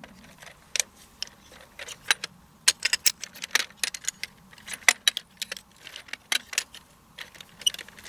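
Aluminium shock-corded pole sections of a Helinox Sunset camp chair frame clicking and clinking as they are pulled apart and folded, in many irregular sharp clicks.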